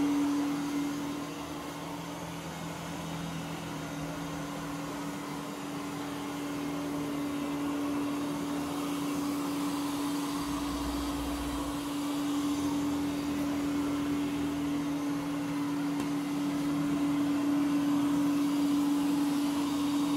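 Ecovacs Deebot OZMO T8+ robot vacuum cleaning carpet: its suction motor gives a steady hum over a hiss of air, growing a little louder and softer as it moves about.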